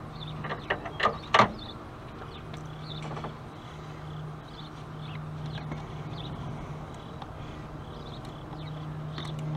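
Screwdriver clicking and scraping against the Phillips-head screws of a throttle position sensor on the throttle body, which look stripped. A few sharp clicks come about a second in, then fainter small clicks over a steady low hum.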